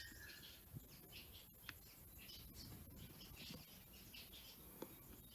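Near silence, with faint bird chirping in the background and a few soft clicks.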